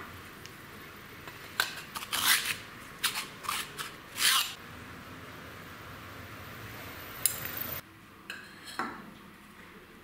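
Steel threaded rod and a polished steel tube being handled on a wooden workbench: a run of sharp metal clinks and short scrapes in the first half, then a few lighter taps near the end.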